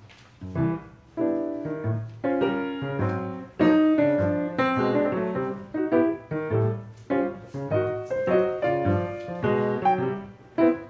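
Acoustic piano playing a slow jazz introduction: a series of struck chords over low bass notes, each one ringing and fading before the next.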